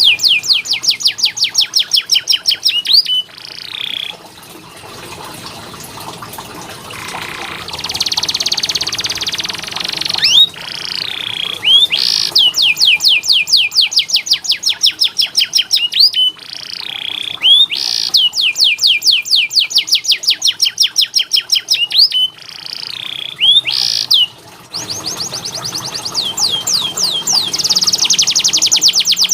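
Domestic canary singing: long rolling trills of fast repeated high notes. The trills are broken by short pauses, with a softer, hissing stretch about a third of the way in.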